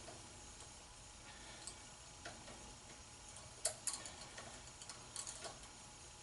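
Faint, scattered clicks from a hand tap and tap handle being backed out of a threaded hole and handled, with one sharper click a little past halfway.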